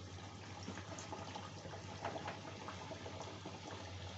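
Hot oil sizzling and bubbling hard around a sattu-stuffed puri deep-frying in a kadhai, a dense hiss full of small crackles as the fresh dough's moisture boils off. A low steady hum runs underneath.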